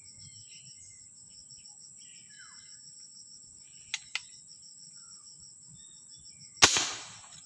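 A single sharp air rifle shot near the end, loud and sudden, dying away quickly, over a steady high-pitched insect chirring with occasional faint bird chirps; two light clicks come about two seconds before the shot.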